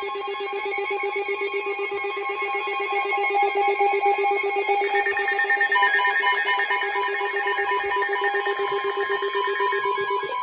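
Weather radio receiver sounding its alert alarm for a severe thunderstorm warning: a steady, rapidly pulsing electronic tone with a higher tone joining about halfway through, cutting off just at the end.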